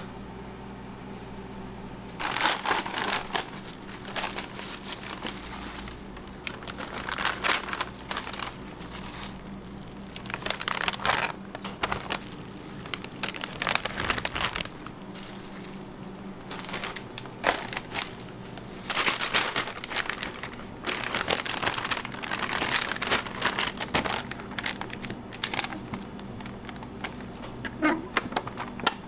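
Disposable plastic gloves and a plastic bag crinkling in irregular bursts as meat is handled and bagged, over a steady low hum.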